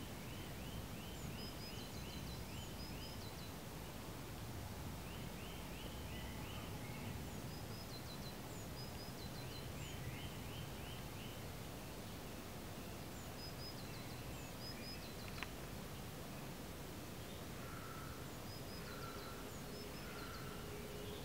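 Songbirds singing: bursts of rapid, high chirping trills that repeat every few seconds over a steady low background noise. A few lower, shorter notes come near the end, and a single sharp click falls about two-thirds of the way through.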